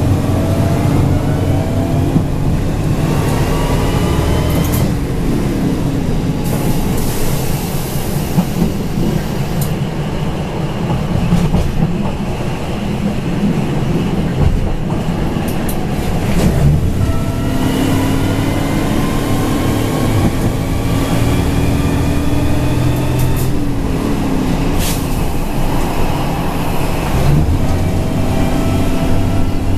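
Diesel railcar running under power, heard from the driver's cab, its engine note rising twice as it pulls, over steady wheel and rail rumble with occasional clicks.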